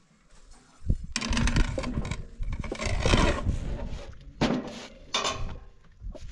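Thin flatbread being handled at a metal griddle: a low thump about a second in, then dry rustling and scraping in irregular spells as a baked sheet is lifted off the griddle and moved.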